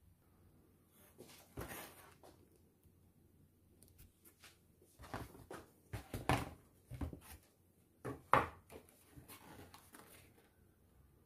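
A few light knocks and clatters at irregular intervals, loudest about two thirds of the way in.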